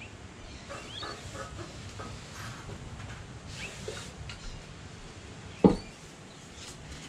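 Light rubbing and handling noises as a rag wipes down the rear of a crankshaft, with a few faint bird chirps. One sharp knock about five and a half seconds in.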